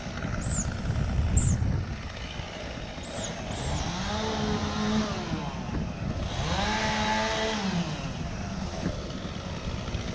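An engine revved up twice, each time climbing in pitch, holding for about a second and then dropping back, over a steady low engine rumble. Short high chirps, like a bird's, sound in the first few seconds.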